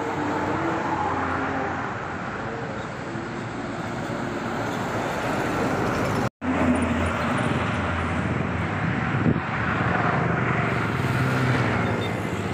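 Steady road traffic noise of vehicles passing, cut off for an instant about six seconds in.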